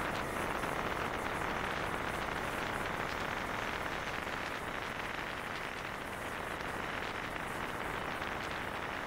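Steady rushing wind and road noise from a Honda CG 125 Titan motorcycle riding along a dirt road: an even hiss with no distinct engine note standing out.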